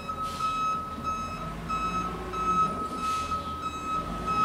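Garbage truck's reversing alarm beeping steadily, about three beeps every two seconds, over the low running of the truck's engine as it backs up. Two short hisses come through, one just after the start and one about three seconds in.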